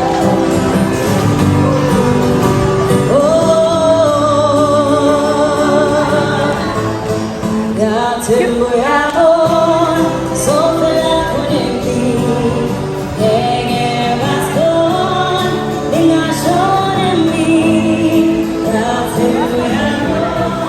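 Music: a song with a singing voice, the melody wavering with vibrato over steady accompaniment.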